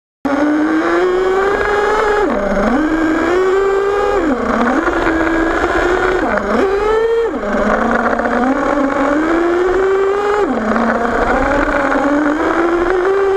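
Nitro engine of an HPI Savage XL radio-controlled monster truck, heard close up from the truck. It runs at a high-pitched whine that rises as the throttle opens and drops sharply about five times as the throttle is let off.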